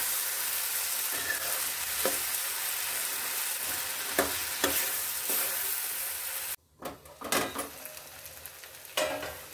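Flat beans and potatoes sizzling in oil in a non-stick kadai while a ladle stirs them, scraping against the pan every second or so. About two thirds through, the sound cuts out for a moment and comes back quieter.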